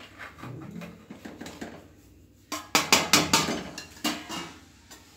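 Steel spoon scraping and clinking against a steel pot as rice flour is stirred into hot water. Quiet scraping at first, then a run of sharp metal clinks about two and a half seconds in, lasting a couple of seconds.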